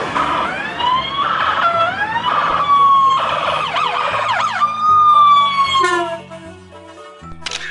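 Police-style siren wailing, its pitch sweeping up and down, heard in short pieces that start and stop abruptly; it gives way to quieter steady tones about six seconds in.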